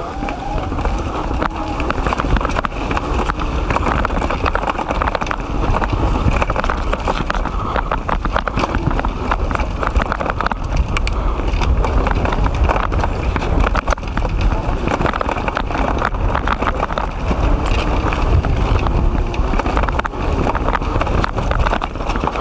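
Kona Stinky full-suspension mountain bike ridden fast down a rooty dirt forest trail: the tyres rumble over the ground while the bike and chain clatter and rattle continually over the bumps, with wind buffeting the microphone.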